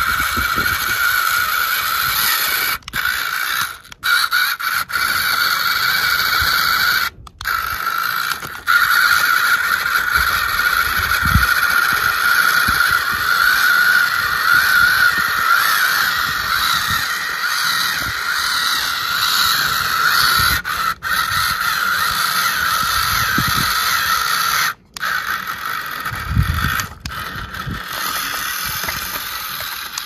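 Electric motor and power gearbox of a remote-control Swaraj 855 FE model tractor whining steadily as it pulls a loaded trolley through loose dirt under load. The whine cuts out briefly about five times as the motor stops and starts again.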